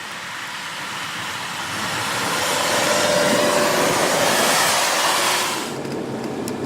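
A road vehicle's rushing noise swells over a few seconds, stays loud, then cuts off abruptly near the end.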